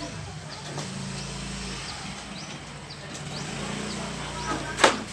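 Domestic cat growling in long low rumbles that break off every second or two for breath while it is held down and struggles, with small birds chirping repeatedly. A single sharp knock near the end is the loudest sound.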